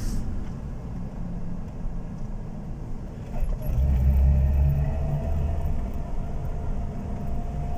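A car's engine and road rumble heard from inside its cabin while driving slowly in traffic. The low rumble swells for a couple of seconds from about three and a half seconds in, with a faint, slowly rising whine under it.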